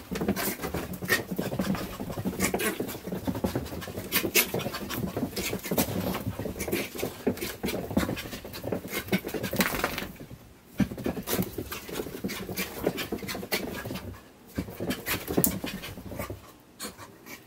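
A dog panting hard as it dashes and tumbles around in a frenzy, with many sharp knocks and scuffs from its running and scrambling. The activity drops away briefly about halfway in and again a few seconds later, and it quietens near the end.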